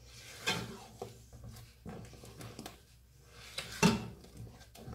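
Silicone spatula stirring thick, thickened custard in a coated cast-iron pot: soft scraping with a few short knocks against the pot, the loudest about four seconds in.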